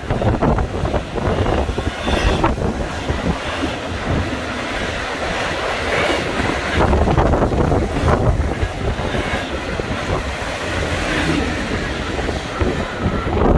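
Intermodal freight train's container cars rolling past on the rails, a steady rolling rumble of wheels, with wind on the microphone. The sound falls away as the last car passes near the end.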